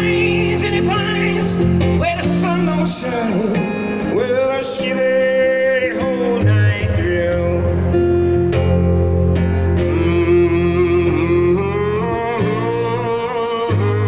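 Live band music: an acoustic guitar played over steady low sustained notes, with a man singing long held notes that bend in pitch about four seconds in and again near the end.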